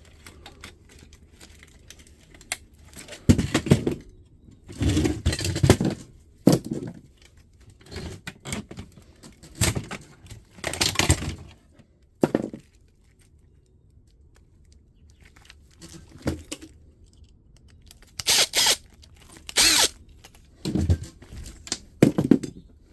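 Irregular clanks, scrapes and rattles of plastic and metal parts as a fax machine is taken apart and its pieces are handled, in a dozen or so separate bursts.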